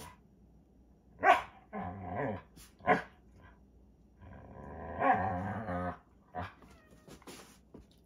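Standard poodle growling and barking in rough play with a cat: a sharp bark a little over a second in, short growls and barks, then a longer growl from about four seconds in that swells and stops at six.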